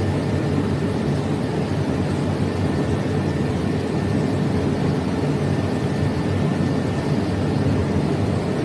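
Steady low engine rumble of a running vehicle, even throughout with no sudden events.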